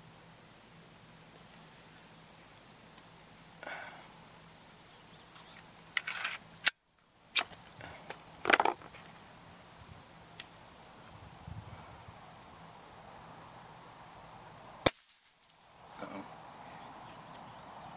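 Ruger Mark I break-barrel spring-piston pellet pistol being handled, cocked and fired: several sharp clicks, and two loud snaps about eight seconds apart, the later one a shot with the breech-seal O-ring split and blowing out. A steady high drone of insects underneath.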